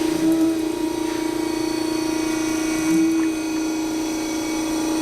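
Harig 612 surface grinder running, a steady motor hum with a constant whine from the spindle and drives. The sound swells briefly near the start and again about three seconds in.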